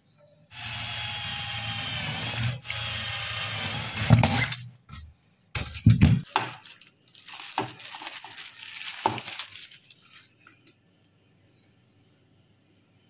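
Electric drill running steadily with a motor whine, boring holes in the fridge's evaporator plate, with a brief break about two seconds in. After that comes crinkling of a plastic bag being opened and handled, with a few low knocks.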